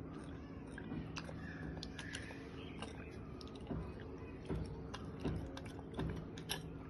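A monkey feeding from a small steel bowl: faint, scattered clicks and taps as its mouth and hands knock against the metal bowl, over a steady low hum.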